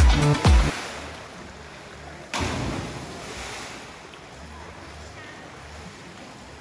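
Background music with a heavy beat cuts off in the first second. It gives way to the open-air ambience of swimmers in a cenote: a steady wash of water and distant voices. About two seconds in, a sudden rush of noise fades away over the next few seconds.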